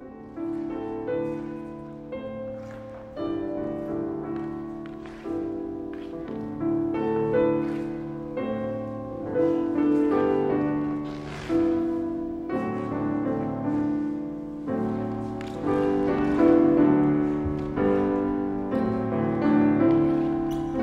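Piano music in slow chords, each struck and left to fade, about one a second.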